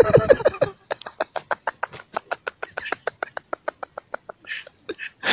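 Rapid laughter: a short voiced start, then about three seconds of quick, breathy, evenly spaced pulses, roughly eight a second.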